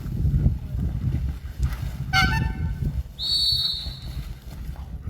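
A whistle gives one steady, high blast of about a second, of the kind a Mondioring judge uses to signal the start or end of an exercise. A brief high-pitched call comes a second before it, all over a low rumble of wind on the microphone.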